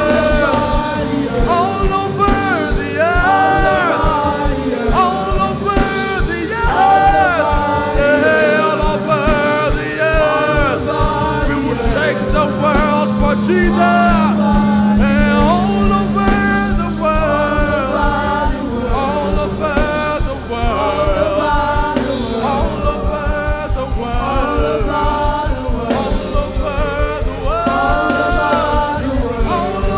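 Gospel worship music: voices singing flowing melodic lines over instrumental accompaniment, with a low note held for several seconds in the middle.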